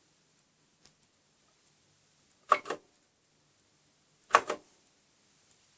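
Two keystrokes on a Kaypro II keyboard, about two seconds apart, each a sharp double click as the key goes down and comes back up, with a faint click about a second in.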